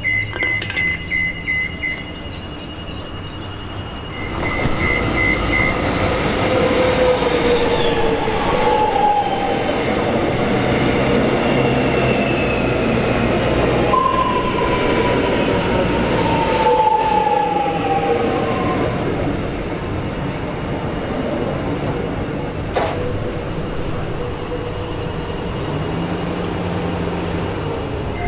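Metro Trains X'trapolis electric train arriving at the platform: its running and wheel noise swells about four seconds in and stays loud as it passes close by, with electric motor whines falling in pitch as it slows. A rapidly repeating high ringing is heard in the first seconds.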